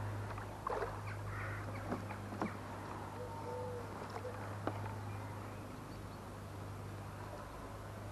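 Hooked carp splashing and swirling at the water's surface close to the bank, with a few sharp splashy knocks over a steady low hum.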